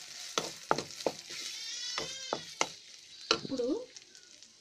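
Chopped boiled chicken frying in oil in a pan, stirred with a spatula: a light sizzle with sharp taps and scrapes of the spatula against the pan, the sizzle dying down over the last second or so.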